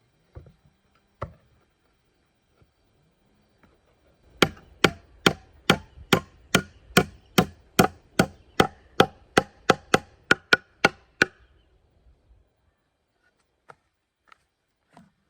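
A hand tool striking wood: a steady run of about eighteen sharp, ringing blows, nearly three a second, after a couple of lone knocks, stopping at once about eleven seconds in.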